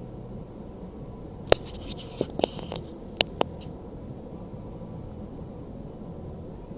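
Steady low cabin hum inside a stopped vehicle, with a short run of sharp clicks and taps about a second and a half in, the first the loudest.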